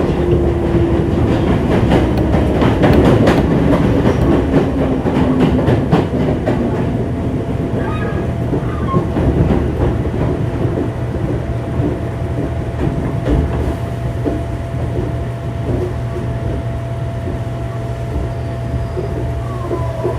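Onboard running sound of a 205-0 series electric train's motor car with inner-fan traction motors. Wheels click over rail joints while a motor tone falls in pitch during the first few seconds. The clicking dies away after about six seconds, leaving a steady low hum and a thin steady whine.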